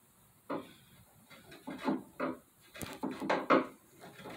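A steel hand tool scraping and gouging at the finished wooden edge of a table in several short, irregular strokes, coming faster in the second half, deliberately marring the finish.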